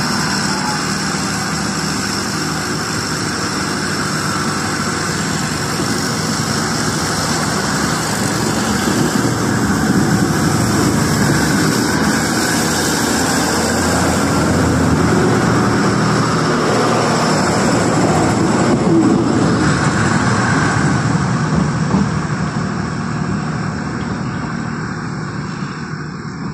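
Network Rail Class 950 diesel multiple unit passing close by and pulling away, its underfloor diesel engines running, growing louder as it goes by and then fading.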